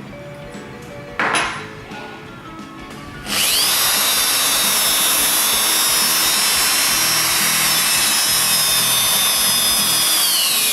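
Bosch GSB 550 corded 550 W impact drill running with no load: after a short burst about a second in, it spins up a little after three seconds, runs at a steady high-pitched whine, and starts to wind down near the end.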